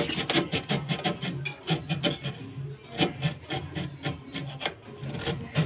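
Brake assembly on a washing machine's spin motor being worked by hand, metal rubbing and scraping in quick, irregular strokes with clicks.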